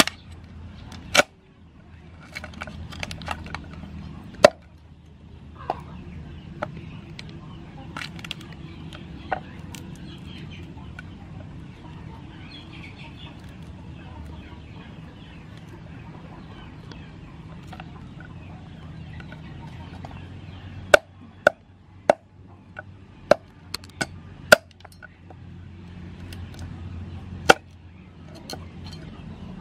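Meat cleaver chopping mud crabs on a thick wooden chopping block: sharp chops scattered through, with a quick run of them about two-thirds of the way in, and quieter cracking and handling of crab shell between them. Chickens cluck in the background.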